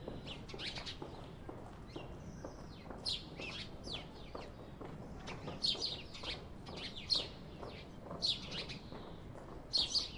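Small birds chirping in short high bursts every second or two, over faint quick taps of a chef's knife mincing garlic on a wooden cutting board.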